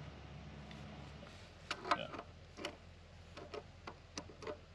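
About ten sharp, irregular clicks and taps of metal tools and fittings being handled while the pitless adapter is fitted and tightened.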